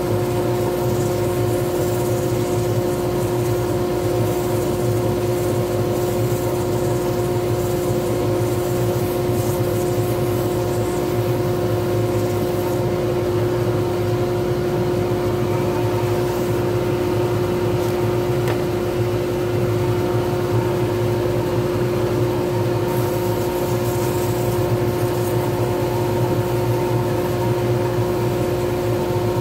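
Wood lathe running at a steady speed with a constant hum, spinning a pen blank while it is finished by hand.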